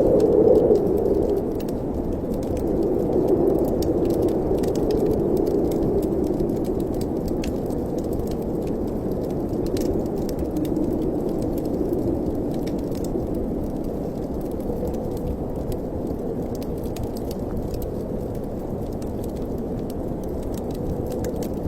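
Wind rushing through a fireplace chimney, a low steady noise that swells and eases in slow gusts, with faint crackling ticks throughout.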